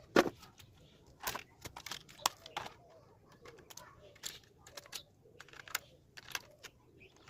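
Hands handling hard plastic: scattered, irregular clicks and light taps, a few to several a second, with short gaps.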